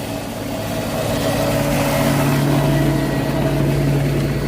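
An engine running steadily at an even pitch, its hum growing slightly louder about a second in.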